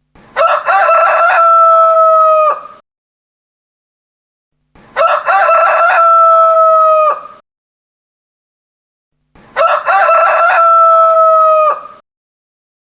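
Rooster crowing three times, about every four and a half seconds, with silence between the crows. Each cock-a-doodle-doo is the same: a broken opening followed by a long held note that sags a little at the end and stops abruptly.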